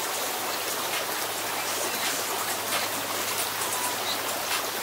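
Shallow creek water running and babbling over rocks, a steady rushing hiss.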